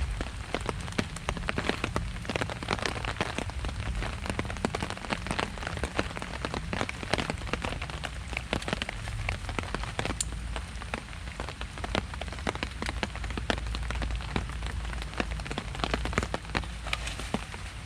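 Heavy rain falling, with a steady hiss and many sharp ticks of drops striking close by, over a low rumble.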